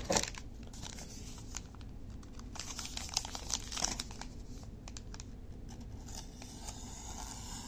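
A freshly sharpened kitchen knife cutting into a paper wrapper, with short bursts of paper crinkling and tearing as the blade bites in, a sharpness test of the edge. It opens with a brief loud rustle, the loudest moment, and ends in a steadier paper scrape.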